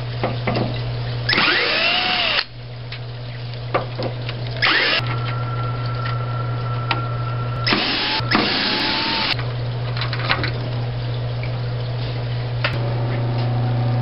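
Black & Decker VPX cordless drill/driver running in three short bursts, its motor pitch rising and falling, as it backs out the screws holding the gas supply line clips. A steady low hum runs underneath, with a few small clicks.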